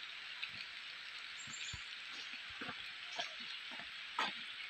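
Light rain falling: a steady soft hiss with scattered faint ticks of drops, and one sharper click about four seconds in.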